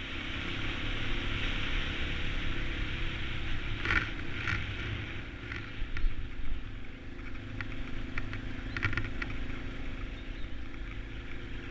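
Yamaha XT250's single-cylinder four-stroke engine running steadily as the motorcycle rides along a muddy dirt road, under a steady hiss. A few short clicks come about four seconds in and again near nine seconds.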